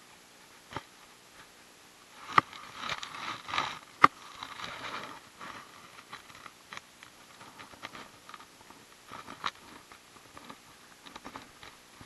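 Close handling noises as a soft-plastic worm is worked out of a largemouth bass's mouth: scattered clicks and rustling, with two sharp clicks about two and a half and four seconds in.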